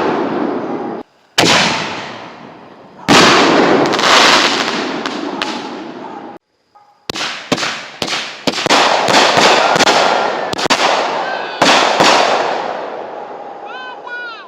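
Consumer fireworks going off: two heavy booms in the first few seconds, each dying away slowly, then a rapid string of sharp bangs and crackles from about seven seconds in. A few short rising whistles come near the end.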